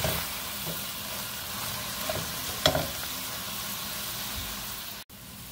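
Sliced yellow onions sizzling as they sauté in oil in a stainless-steel pan, stirred with a wooden spoon. One sharp knock about two and a half seconds in, and the sizzle drops out for a moment just before the end.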